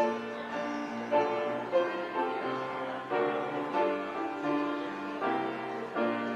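Piano or keyboard music: chords and a melody, with notes struck about every half second.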